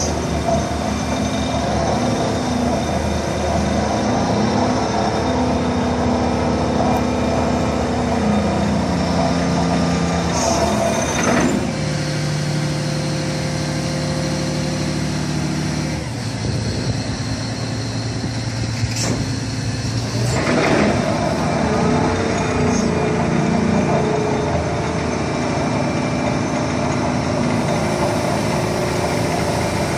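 Doosan DX420 excavator's diesel engine running under hydraulic load as its boom is moved, the engine note shifting in pitch a few times. Two short hissing sounds come about a third of the way in and again about two-thirds in.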